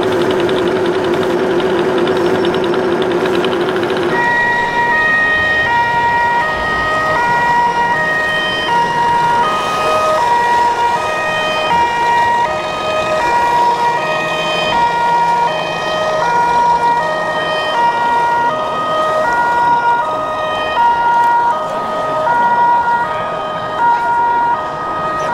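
An engine running for about the first four seconds, then a two-tone emergency-vehicle siren that alternates between a high and a low note, each held under a second, until the end.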